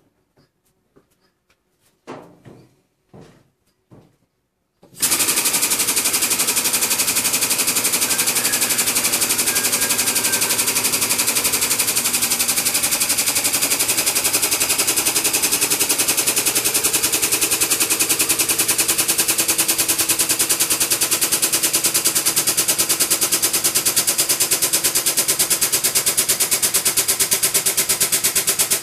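A few light metal knocks as parts are set in the shop press. About five seconds in, the air-over-hydraulic bottle jack's air pump starts a loud, rapid, even chatter that keeps going as the press pushes a new bush into the radius arm.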